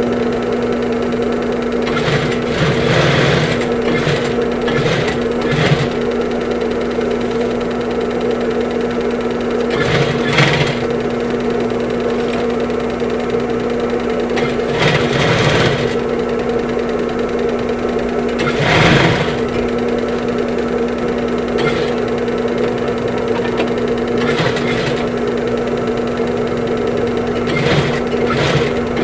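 Electric sewing machine running steadily, stitching a replacement zipper onto a bag, with a few short louder noises along the way.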